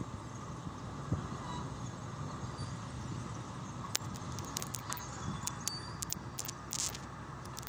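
Distant steady hum of a diesel engine, the crane barge at work on the water; from about four seconds in, a scatter of short sharp clicks over it.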